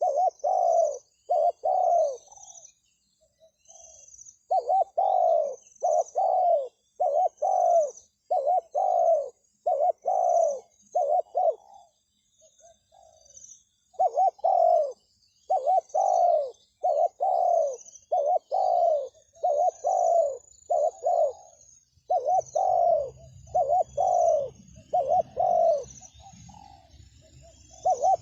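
Spotted dove cooing: short low coos about two a second in runs of six to eight, with pauses between runs. Faint high chirping of other birds runs above it, and a low rumble comes in during the second half.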